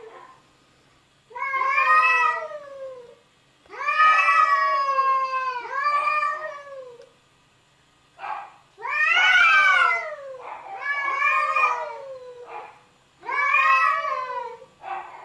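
A cat yowling in a string of long, drawn-out meows. There are about seven calls, each a second or two long, each bending up and then down in pitch, with short pauses between them.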